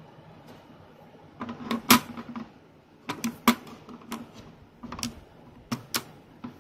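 Irregular plastic clicks and taps from a hand pressing and handling the housing of a Travor TL-120S LED video light, in small clusters starting about a second and a half in.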